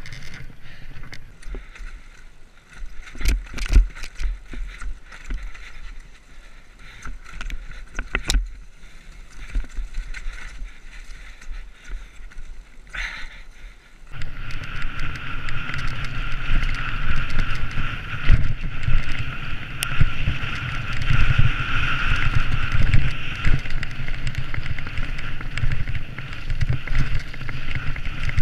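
A few knocks and rattles as a mountain bike is handled on the trail; then, from a cut about halfway through, the steady rush of wind on the microphone with the rumble and rattle of a mountain bike ridden fast down a dirt trail.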